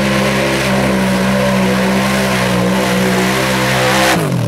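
ATV engine held at high, steady revs as the quad churns through a mud hole; about four seconds in it passes close by and the pitch drops sharply.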